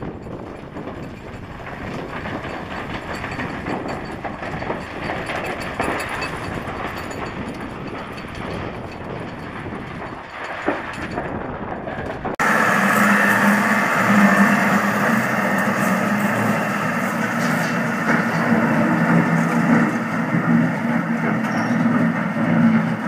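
Farm tractor pulling an Ag Shield land roller across a field, the engine running with the roller clattering along. About twelve seconds in, the sound cuts suddenly to a louder, steady engine drone from a second tractor and roller.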